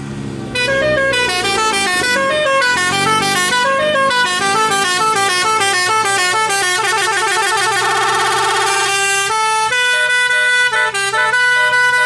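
Multi-tone telolet air horn playing a melody: loud stepping notes start about half a second in, become a fast trill near the middle, then settle into slower held two-note calls near the end.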